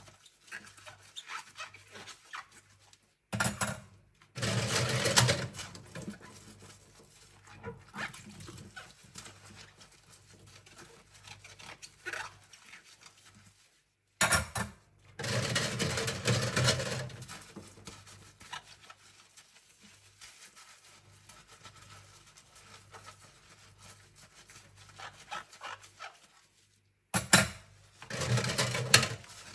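Cutlery and utensils being hand-scrubbed in a kitchen sink: light clinks of metal and the rub of a sponge or brush, broken three times by louder rushing bursts of a couple of seconds each.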